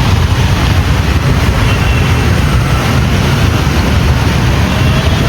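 Loud, steady rumbling noise, heaviest in the low end, with no distinct events.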